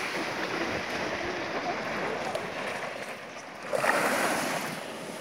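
Small surf washing onto a sandy beach: a steady wash of water, with one wave coming in louder about four seconds in.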